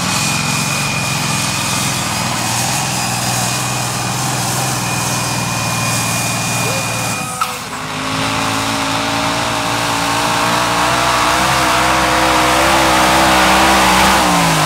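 Two modified pulling tractors at full power in turn. First the multi-cylinder engine of the 'Smoking Devil' runs steadily with a thin high whine above it. After a sudden cut about halfway, a red multi-engine modified takes over, its engine pitch rising slowly and wavering as it pulls the sled.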